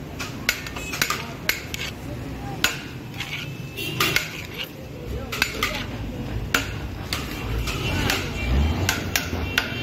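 Metal serving spoon scooping and scraping biryani in a large aluminium cooking pot, with irregular sharp clinks, about two a second, as the spoon knocks against the pot and the plastic takeaway box.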